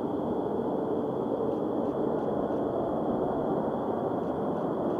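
Distant F-35B Lightning II jet engine running: a steady low rumble with a thin, constant high whine.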